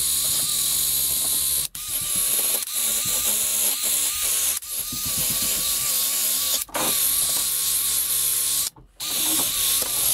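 Wire wheel in a Porter-Cable electric drill spinning against a rusty steel railroad spike, scrubbing off surface rust: a steady motor whine under a bright scratching hiss. The drill stops briefly three times, the last pause, near the end, the longest.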